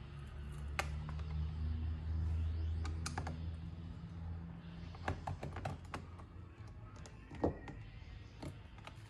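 Scattered light clicks and taps from a laptop being handled on a work surface, over a low hum that fades out about halfway through.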